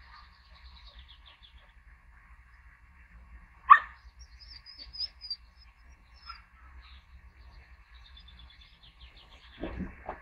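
Small birds chirping, with one short sharp sound nearly four seconds in and a cluster of low thumps near the end as a puppy jumps against a glass sliding door.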